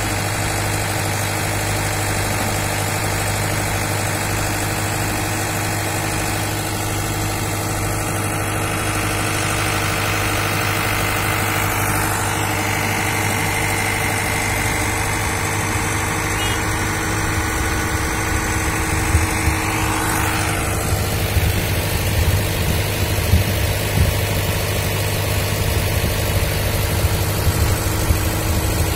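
Diesel engines of heavy construction machinery idling steadily with a low hum, with a few irregular knocks in the second half.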